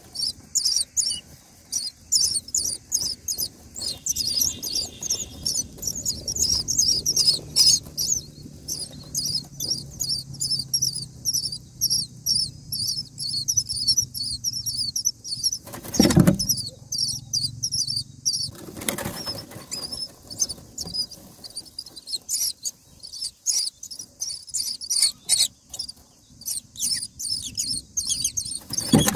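Common myna nestlings begging: a rapid, unbroken stream of thin, high-pitched cheeps, many a second. Two dull thumps come a little past halfway.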